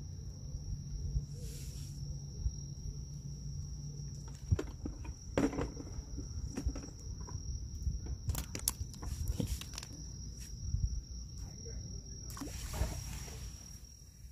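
Scattered clicks, knocks and rustles of fishing tackle and a small fish being handled in rubber-coated gloves, over a steady high-pitched insect drone and a low rumble.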